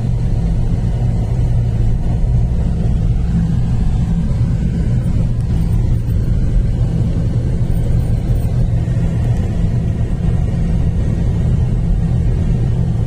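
Steady low rumble of a road vehicle driving along, engine and road noise, with no sharp events.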